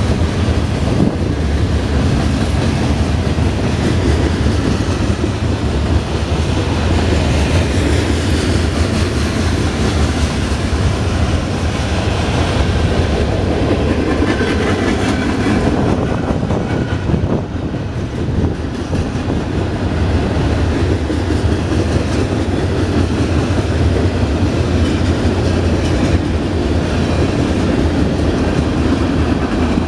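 Freight train cars rolling past: a steady rumble of steel wheels on the rails, with a clickety-clack of wheel sets passing over rail joints.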